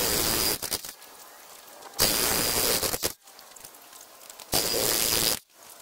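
Corded electric jackhammer driving a steel pipe of a Diamond Pier footing down into sandy soil. It runs in three bursts of about a second each, with short pauses between.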